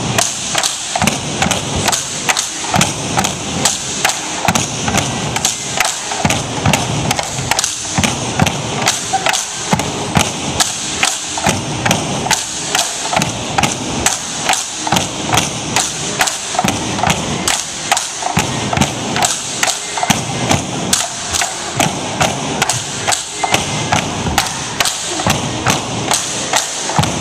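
Tinikling poles tapped on a hardwood gym floor and knocked together in a steady rhythm, about two knocks a second.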